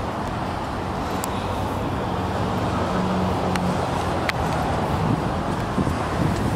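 Steady low vehicle and traffic rumble, with a couple of faint clicks about halfway through.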